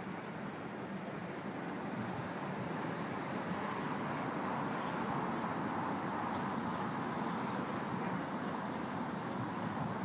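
Steady city traffic noise, growing a little louder about two seconds in.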